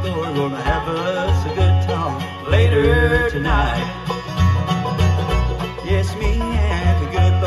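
Bluegrass band playing an instrumental passage without vocals: banjo, mandolin, acoustic guitar, dobro and upright bass, with sliding lead notes over a steady upright-bass pulse.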